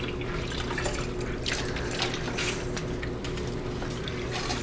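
Soapy water sloshing and splashing in a sink as a rubber gas mask is scrubbed by hand, with irregular small splashes throughout.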